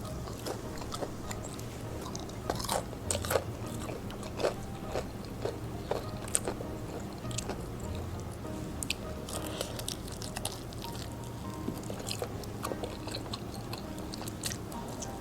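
Close-up crunching and chewing of crispy fried chicken: a run of sharp crunchy bites, loudest a few seconds in, then lighter crunches and chewing.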